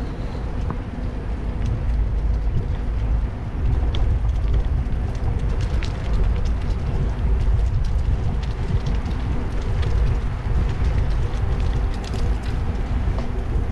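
Steady low rumble from a moving bicycle: wind buffeting the microphone and tyres rolling over brick pavers, with scattered faint ticks.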